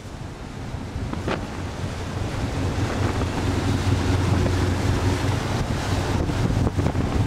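Wind buffeting the microphone over open water, a dense rumbling noise with water sounds, and a low steady hum that grows stronger about halfway through.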